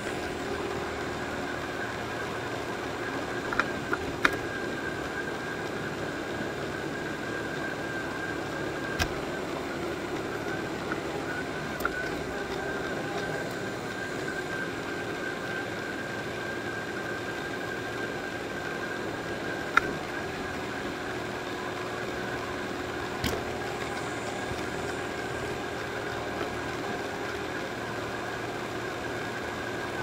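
Robot vacuum running: a steady whirring hum from its motor and brushes, with a constant high tone over it. A few sharp clicks or knocks break in, two close together about four seconds in and others later.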